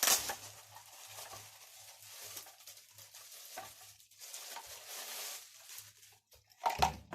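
Packaging rustling and scraping as parts are lifted out of a component box, with a knock near the end.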